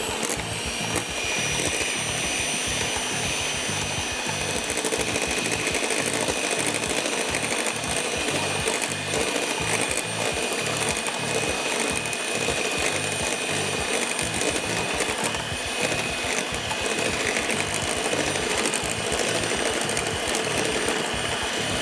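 Electric hand mixer running at a steady speed, its beaters whisking a liquid egg custard mixture in a glass bowl with a constant motor whine.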